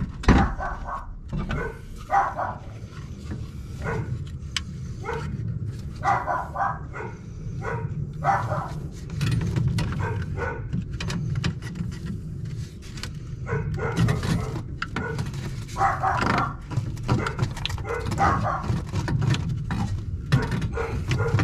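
A dog barking repeatedly in irregular bouts, single barks and quick runs of several, with pauses of a few seconds between them, over a steady low rumble.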